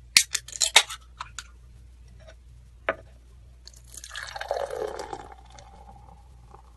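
Liquid pouring into a glass: a quick run of clicks and drips in the first second, a single click near three seconds, then about two seconds of splashing pour whose pitch sinks and settles before fading.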